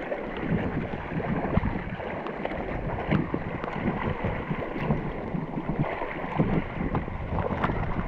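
Choppy sea water sloshing and splashing at the surface, with a swimmer's arm strokes splashing close by and some wind buffeting on the microphone.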